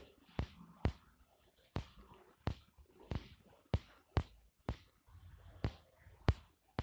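A series of sharp clicks, about a dozen at uneven intervals of roughly half a second.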